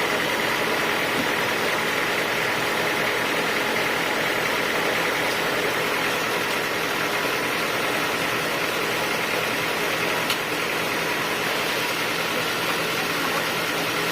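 Sawmill machinery running at a steady pitch, a constant mechanical drone with no rise or fall of a cut.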